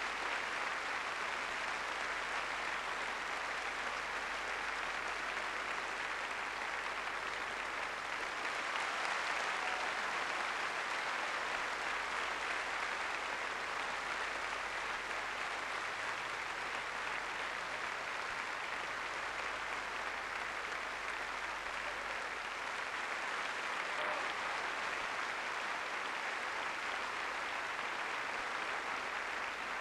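Theatre audience applauding steadily through a ballet curtain call, a dense even clapping with no music.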